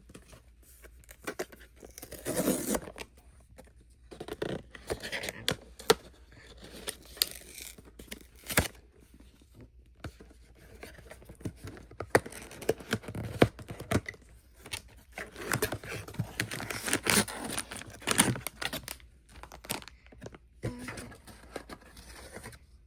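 Blind box packaging being torn and crinkled open by hand, with irregular rips, rustles and sharp clicks throughout.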